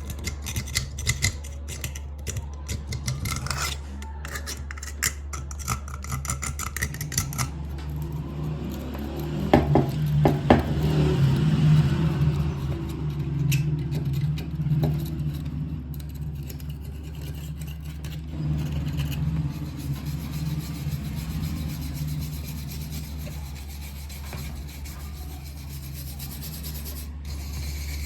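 Rasping, scraping strokes on the rusty metal of an old vermicelli hand machine, quick and choppy at first and then smoother rubbing, over a steady low hum.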